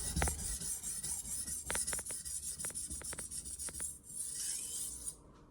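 Steel knife blade being stroked rapidly back and forth on a hard, slow-wearing combination sharpening stone: a continuous hissing scrape with a few light ticks in the middle, stopping shortly before the end.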